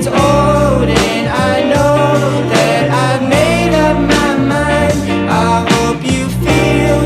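A song with a singing voice over guitar and a steady beat.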